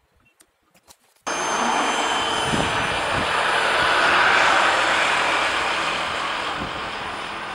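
Radio-controlled Finwing AlbaBird foam plane flying low and climbing away, its electric motor and propeller giving a steady whine with a high tone on top. It starts suddenly about a second in, is loudest around the middle and eases off a little near the end.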